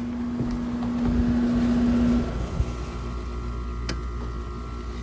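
GE 5,000 BTU window air conditioner running with a steady mechanical hum; a steady low tone in it stops about two seconds in.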